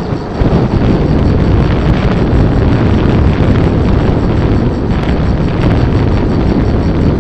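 Wind buffeting the microphone of a camera on a moving rider: a loud, steady, low rushing noise that eases for a moment just after the start.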